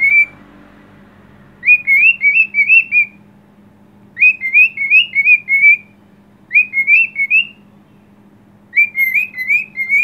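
Cockatiel whistling a short tune: four phrases of three to five quick rising notes each, with brief pauses between them.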